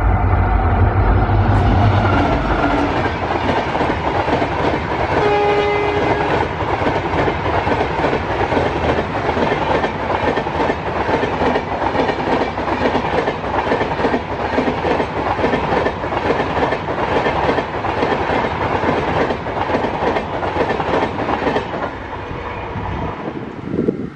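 An EMD diesel locomotive and its passenger coaches passing at high speed: the locomotive's engine rumbles for the first two seconds, then the coaches rush by with a rapid clickety-clack of wheels over the rails. A short train-horn blast sounds about five seconds in.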